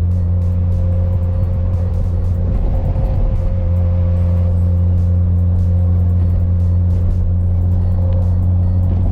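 Mazda RX-7 FD's twin-turbo 13B rotary engine running at a steady, even drone, heard with music over it.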